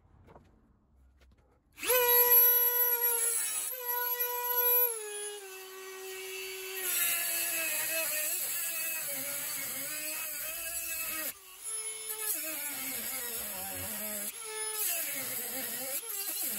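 A Dremel rotary tool with a cut-off wheel starts up about two seconds in with a high, steady whine. It then cuts into the sprue of a cast aluminium skull: its pitch drops and wavers as the wheel bites under load, over a hiss of cutting.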